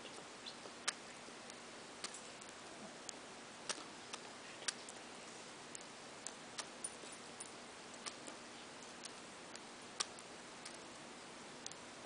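Budgerigar eating seed, its beak cracking and husking the seeds in small sharp irregular clicks, about one or two a second, over a steady faint hiss.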